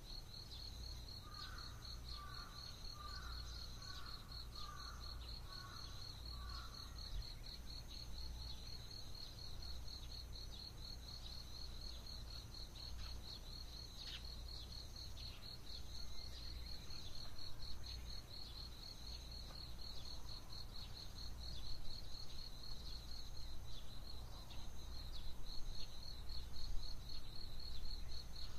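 Dawn outdoor ambience: an insect trills steadily in a fast, even pulse the whole time. In the first few seconds a bird calls a run of about eight short, evenly spaced notes. A low rumble underneath grows louder in the second half.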